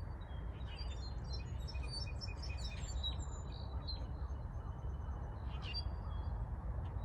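Several birds chirping in short, high notes, busiest through the first half and again briefly near the end, over a steady low rumble.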